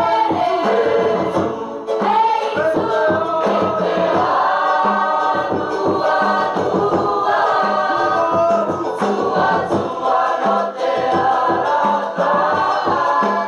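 A Cook Islands performing group singing a song together in harmony, with drum beats keeping time under the voices.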